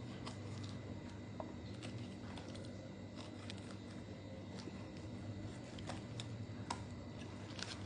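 Light, irregular clicks and taps over a low steady hum.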